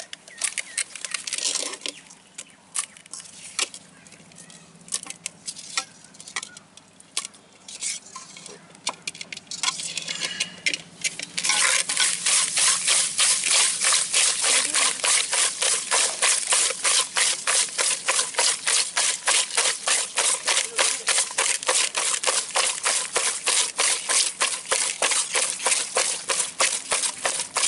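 Hands rubbing and scrubbing shelled snail meat with rock salt in a clay pot, at first in scattered handling clicks, then settling about a third of the way in into a fast, steady rhythm of strokes. The salt scrub is working the slime off the snail meat, which is still slimy.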